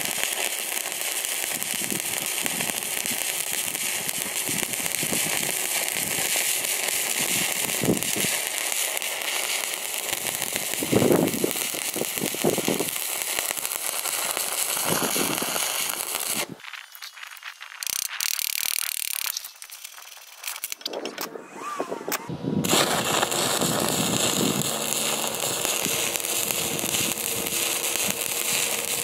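Stick-welding arc from a Miller Dynasty 300 crackling steadily. The arc breaks off a little past halfway for several seconds, with only a few clicks, then is struck again and crackles on.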